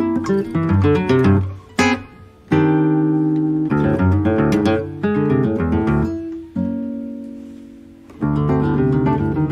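Solo classical guitar with nylon strings, fingerpicked in phrases of plucked notes and chords. The playing nearly stops for a moment about two seconds in. Later a held chord rings and fades for over a second before the playing picks up again near the end.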